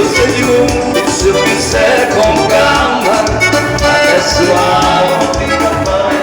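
Loud dance band music, with a steady pulsing bass beat under melodic instrument lines.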